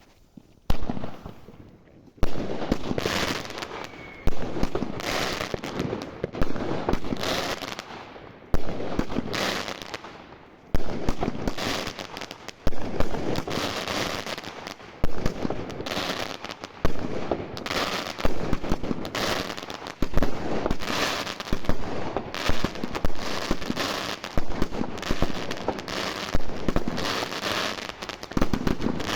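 Consumer firework battery (cake) firing shot after shot, a new shot every second or two, each trailing off in a crackling tail.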